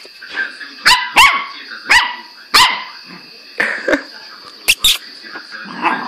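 Samoyed puppy barking: a string of short, high-pitched barks about every half second to a second, several dropping in pitch.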